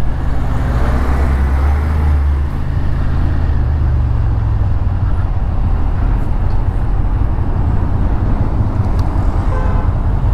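Suzuki Gladius V-twin motorcycle engine running at low revs in slow stop-and-go city traffic, mixed with the steady noise of the surrounding cars and lorries. A deep low rumble is heaviest in the first couple of seconds.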